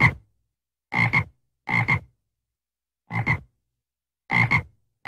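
Frog croaking: short croaks, each in two quick pulses, repeated about once a second with silence between.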